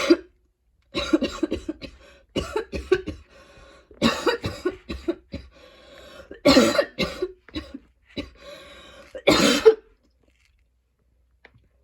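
A young woman's painful, choking coughing fit: clusters of rapid coughs in quick succession, the last burst about nine and a half seconds in, after which the coughing stops.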